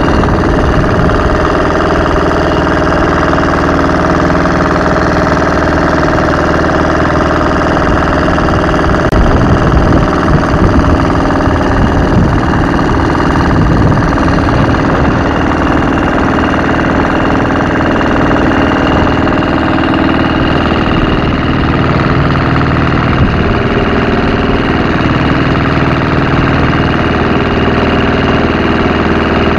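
Wooden motorboat's engine running steadily while the boat is under way.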